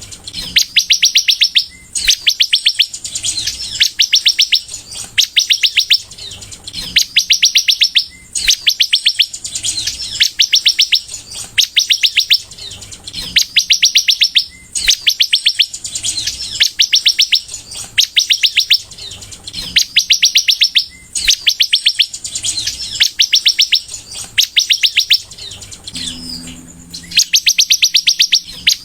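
A sunbird (kolibri) singing steadily in full song. It repeats rapid, high trills of evenly spaced notes, each phrase lasting about a second, with short pauses between them.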